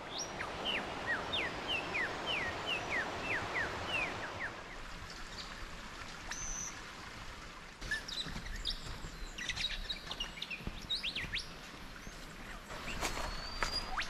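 Forest birds calling: a quick run of short, downward-sweeping chirps over the first few seconds, then scattered chirps and a brief high whistle.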